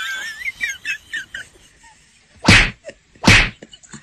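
Comedy sound effects: a warbling whistle-like tone sliding up and down for about a second and a half, then two short, loud bursts of noise near the end.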